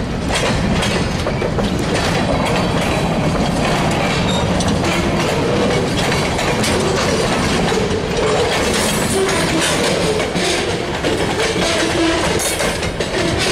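Freight train cars rolling past, their wheels clicking steadily over the rail joints, with a wavering wheel squeal through the middle.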